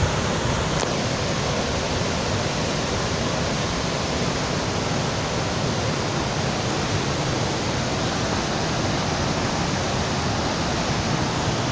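Waterfall water rushing with a steady, even roar of noise that does not change.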